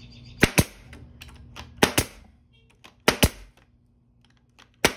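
NT50AE2 18-gauge pneumatic brad nailer firing brads into wood trim: four shots about a second and a half apart, each a sharp double snap.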